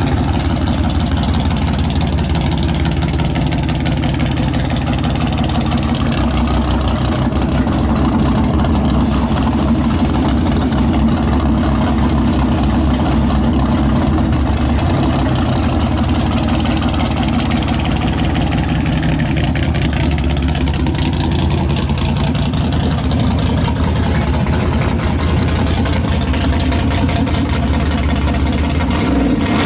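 Chevrolet S-10 drag truck's engine idling steadily.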